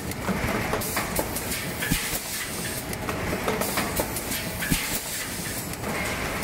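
Yawei YW-L4S four-cavity PET blow moulding machine running: irregular clacks and knocks from the preform transfer and grippers over a hiss of compressed air.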